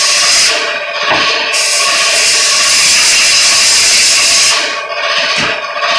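Compressed-air blow gun hissing as it blasts out a chainsaw bar's guide rails and oiler ports. There is one long blast with a brief break near the start, then short puffs near the end, over the steady running of the air compressor.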